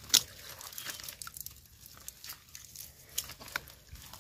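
Wet leaves and debris crackling and rustling in a fish-scooping basket as they are picked through by hand. Scattered sharp clicks run through it, the loudest a snap just after the start.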